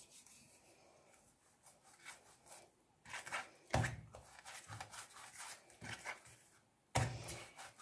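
Faint soft rubbing and handling sounds as a wooden rolling pin and hands work an oiled ball of yeast dough flat on the counter, with a light knock about four seconds in and another near the end.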